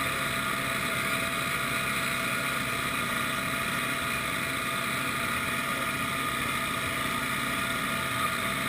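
Snowmobile engine idling steadily, with an even, unchanging running note.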